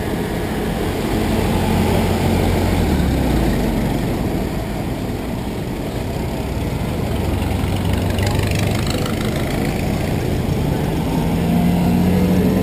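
Antique cars driving past one after another, their engines running with a low hum. It swells as one passes close about two seconds in and again near the end.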